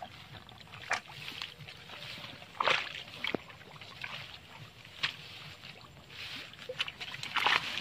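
Hands groping in shallow muddy water and grass at a canal edge, making irregular splashes, squelches and rustles.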